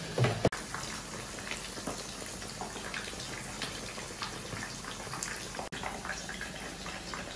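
Beef bones and meat simmering in a pot of water, the broth bubbling with many small irregular pops. A louder thump just after the start.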